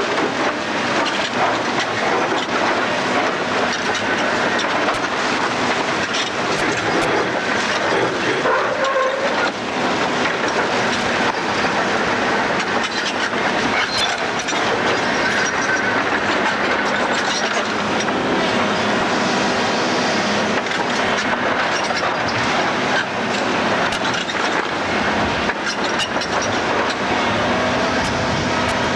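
Demolition machinery working on a building: a steady, rough clattering noise with scattered sharp knocks of breaking material.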